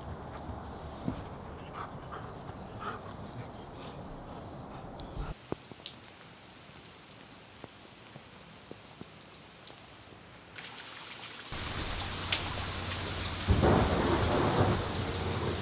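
Steady rain, with water running and dripping off a porch roof. It gets louder near the end.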